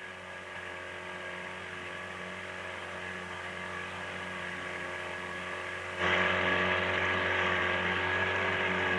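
Small outboard motor running steadily at a constant pitch while towing a long canoe, growing slowly louder. About six seconds in it turns suddenly much louder and closer, heard from aboard the towing boat.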